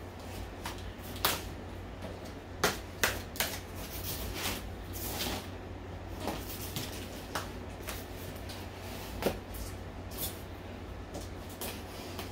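A utility knife slitting packing tape along the seams of a cardboard box: irregular short scrapes and clicks of the blade and tape against the cardboard, over a low steady hum.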